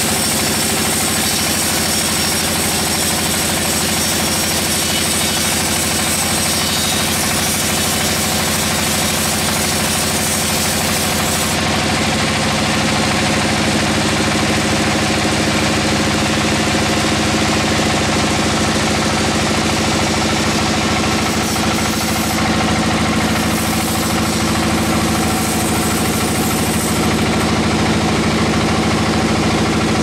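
Sawmill band saw machinery running with a steady engine-like drone. A high hiss on top dies away about a third of the way in while the drone carries on.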